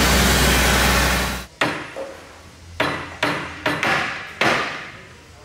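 Oxy-fuel torch flame running with a loud steady rush, stopping suddenly about a second and a half in. Then a hammer strikes a steel drift against the machine's steelwork about six times, each blow sharp with a brief metallic ring.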